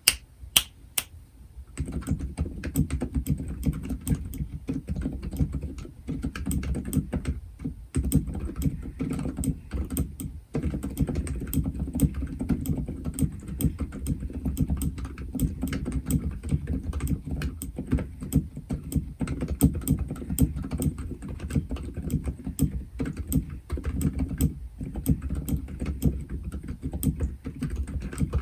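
Typing on a Womier K66 mechanical keyboard fitted with silent linear Silent Alpaca switches, lubed with Krytox 205g0 and filmed, with the keyboard set straight on the desk without a desk mat. A few separate key presses come first, then steady, fast typing from about two seconds in.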